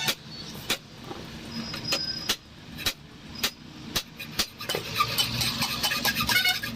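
Irregular sharp metal taps and knocks, about one or two a second, over a low steady hum, from hand work on a car shock absorber being repaired.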